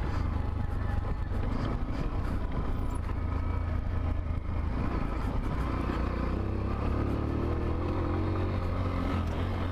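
Macbor Montana XR1 125cc trail bike's single-cylinder four-stroke engine running steadily as it is ridden off-road.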